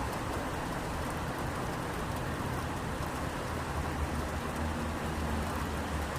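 Steady rain falling on a city street, an even hiss of drops, with a low rumble underneath that swells about two-thirds of the way through.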